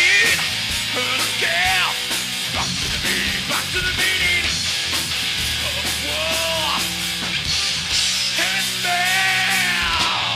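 Live rock band playing with electric guitars, bass and a drum kit, and a singer yelling over them.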